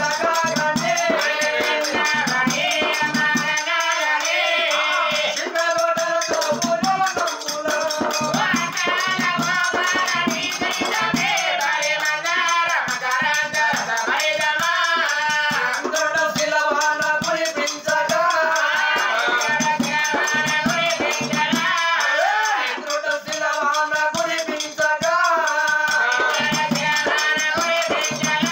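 Oggu Katha folk music: singing over a fast, steady rattling and jingling percussion that runs without a break.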